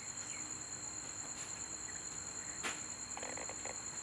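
Crickets chirring steadily at night, with one sharp click a little past halfway through.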